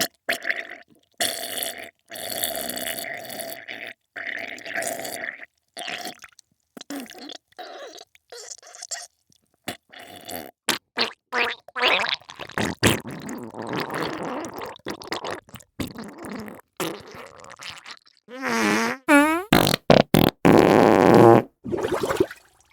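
A string of fart and wet diarrhoea sounds: short bursts broken by abrupt silent gaps. About three-quarters of the way through, one long fart wavers up and down in pitch, followed by the loudest bursts.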